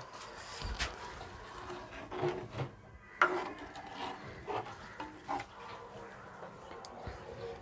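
Spatula stirring curry in a clay pot, scraping and knocking against the earthenware with a sharp knock about three seconds in.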